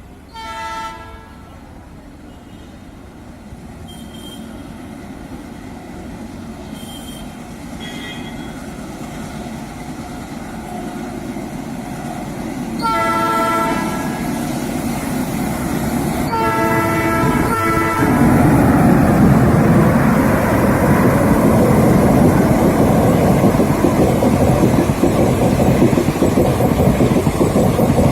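Indian Railways train approaching and passing close by. The locomotive's horn gives a short blast near the start, then two longer blasts about halfway through, while the rumble of the train grows. For the last ten seconds it rushes past loudly with wheel clatter.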